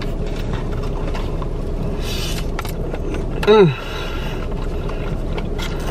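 Close mouth sounds of a man chewing a mouthful of food, with small clicks and smacks, and one short falling "mm" of enjoyment about three and a half seconds in, over a steady car hum.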